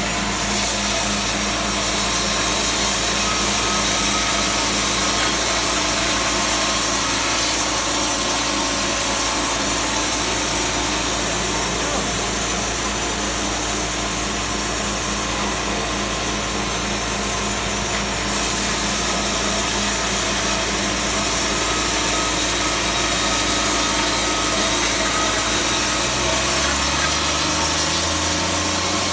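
Wood-Mizer band sawmill running, its band blade sawing through a log with a loud, steady noise. Near the end the low engine note shifts.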